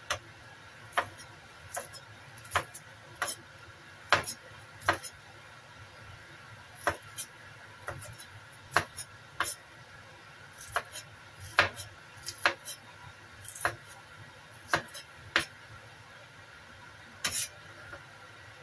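A cleaver chopping garlic and shallots on a cutting board: sharp knocks of the blade hitting the board, at an irregular pace of roughly one or two a second, stopping near the end.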